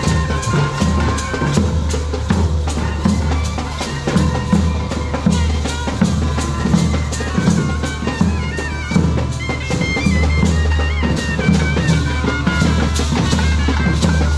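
Temple procession music: drums beaten in a steady beat with clashing hand cymbals, and a high wavering melody played over them.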